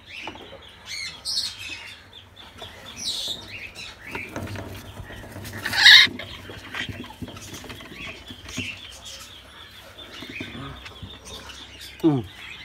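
Scuffling and flapping inside a parrot nest box as African grey chicks are caught by hand, with small bird sounds throughout. One loud, harsh sound stands out about six seconds in.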